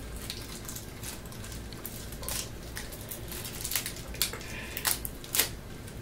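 Thin plastic wrapping being cut with a knife and peeled off a plastic airsoft pistol: crinkling and scattered sharp clicks, coming more often in the second half.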